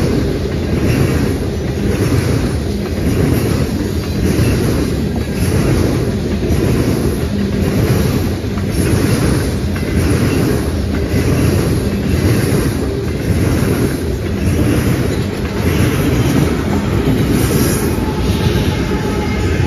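Freight train of covered hopper cars rolling past, a steady low rumble with the wheels clicking rhythmically, a little faster than once a second. Near the end a GE diesel locomotive running mid-train draws level, adding the steady tones of its engine.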